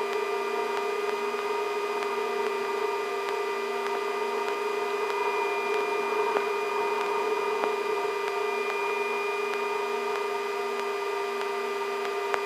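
Sikorsky S-64 Skycrane helicopter heard from inside its cockpit: a steady drone of its twin turbine engines and drive, with several steady whining tones, holding level throughout.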